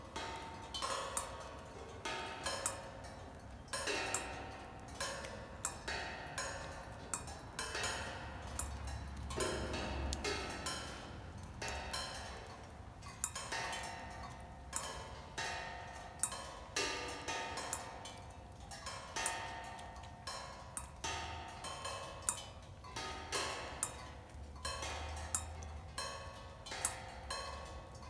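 Raindrops striking cymbals, giving an irregular patter of metallic pings and taps, some louder than others, with the cymbals ringing briefly after each hit.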